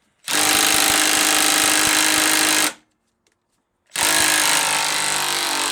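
Impact wrench hammering on the differential's prop flange nut in two bursts of about two and a half seconds each, with a pause between them; the nut is resisting and not coming undone straight away.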